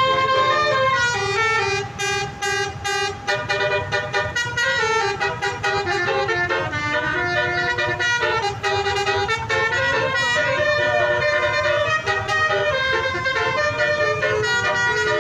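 Indonesian bus basuri (telolet) musical air horns playing tune phrases of stepped notes, several lines overlapping as buses answer one another, over a steady low rumble.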